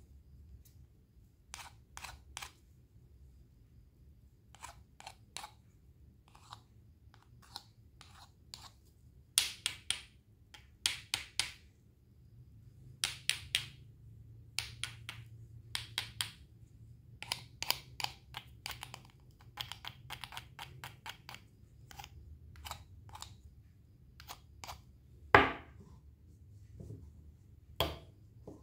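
Knife cutting fruit: a long run of short, crisp cuts and taps in irregular clusters, with one louder knock near the end.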